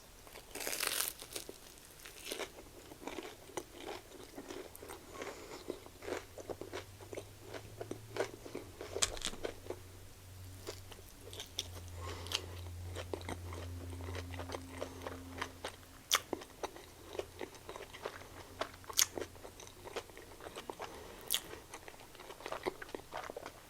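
Close-up chewing and crunching of a Korean corn dog with a crispy hot Cheeto coating: many small, irregular crunches and mouth clicks as it is bitten and chewed.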